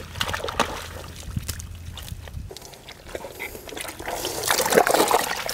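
Hands digging and scooping through soft, waterlogged tidal-flat mud: irregular wet squelches and sucking sounds, with water sloshing and dribbling, getting louder from about four seconds in.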